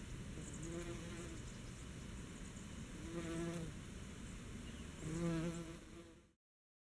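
A bee buzzing in flight among flowers, its hum swelling three times as it passes close, about a second in, around three seconds and loudest around five seconds. The sound fades out shortly before the end.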